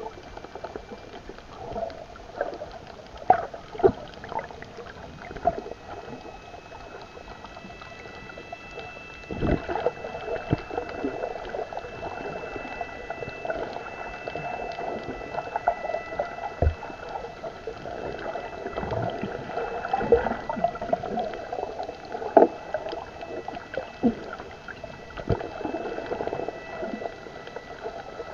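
Underwater sound as picked up by a camera in a waterproof housing: a muffled watery wash with scattered sharp clicks and knocks, and faint steady high tones throughout.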